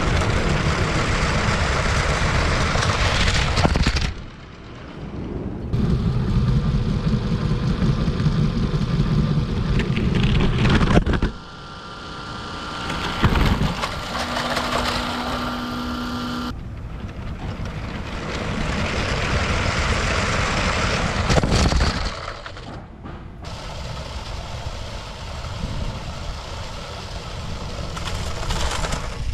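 Battery-powered Lego City train running on plastic track: a rattling, rumbling run with motor whir, heard close up. The sound changes abruptly several times, and a stretch of steady humming tones comes in near the middle.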